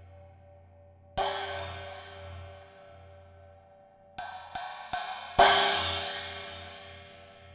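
Handmade B20 bronze cymbals being struck and left to ring. One hit about a second in decays slowly. Then come three quick lighter strikes between four and five seconds in, and the loudest crash, which rings and fades away.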